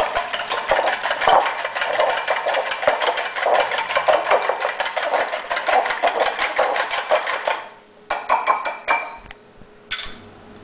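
A wire whisk beating wet pancake batter ingredients (egg yolks, milk and melted butter) in a bowl, a fast steady run of clicking strokes against the bowl. It stops about seven and a half seconds in, followed by a few short taps and scrapes.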